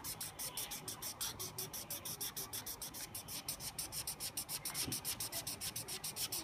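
Felt-tip marker scratching back and forth on paper in quick, even colouring strokes, about five a second, filling in a drawn outline.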